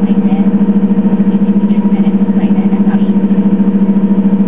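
The Detroit Diesel Series 50G natural-gas inline-four engine of a 2003 Orion VII CNG bus, running at a steady speed. It makes a loud, even hum with a rapid, regular pulse and no change in pitch.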